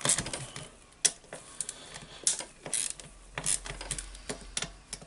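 Hand ratchet wrench clicking in short, uneven strokes as a socket loosens the housing screws of a Hilti TE1000-AVR demolition hammer.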